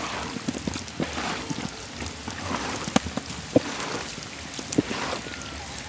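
Snakehead murrel fish slices being mixed by hand into a wet chilli, garlic and lemon marinade in a large bowl: a steady wet squishing with scattered soft clicks as the pieces knock together.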